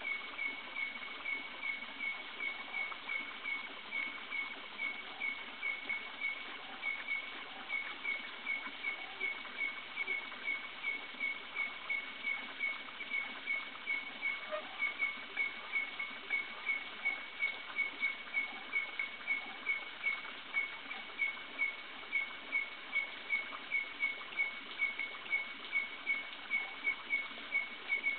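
Night forest sounds: a short high chirp repeating steadily about twice a second, stronger from about halfway on, over a constant high hiss of insects.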